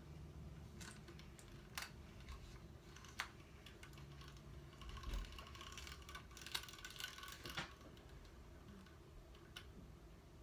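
Faint scattered clicks, with a denser patch of light rattling and clicking in the middle, from a vintage camera's small mechanical parts being handled and worked.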